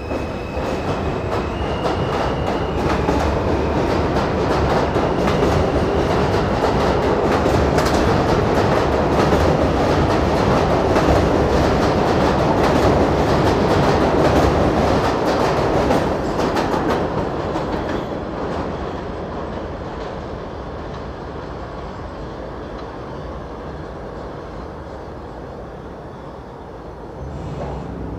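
An R160 subway car running on the track, its wheels clicking rapidly over rail joints. A faint motor whine steps up in pitch in the first few seconds. The running noise swells for about the first half, then fades away after about 16 seconds.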